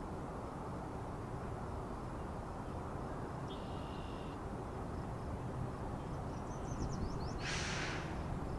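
Steady low outdoor background rumble, with a short high bird call about halfway through. A quick run of high chirps comes near the end, followed by a brief hiss.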